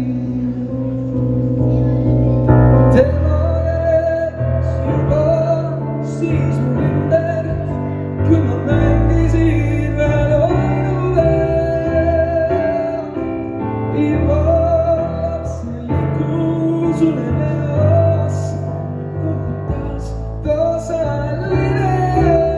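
Live male singing into a handheld microphone, accompanied by a Yamaha grand piano. Piano alone opens, and the voice comes in about three seconds in with long held notes and vibrato.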